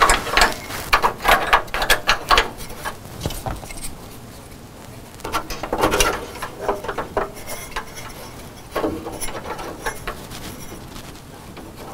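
Metal cover plate being handled and fitted into the bottom of a metal computer case: scattered clicks, taps and scrapes of plate against frame. They come in bursts, busiest in the first few seconds and again about halfway through.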